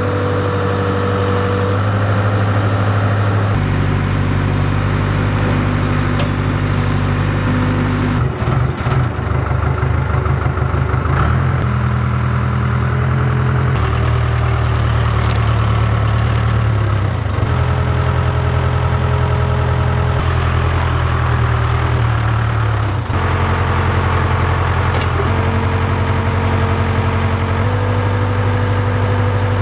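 Case 580K backhoe's diesel engine running under hydraulic load as the boom lifts a log, its engine note shifting up and down in steps every few seconds and wavering for a few seconds about eight seconds in.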